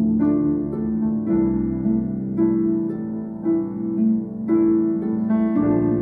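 Concert harp and Steinway concert piano playing together: repeated plucked, arpeggiated figures whose chord shifts about once a second.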